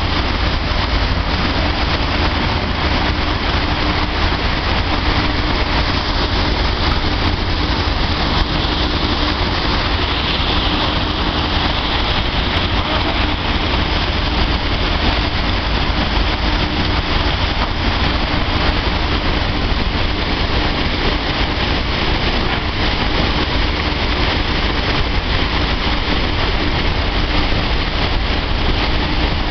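A dryer running steadily: a constant loud rush of air with a low rumble and a faint steady hum underneath.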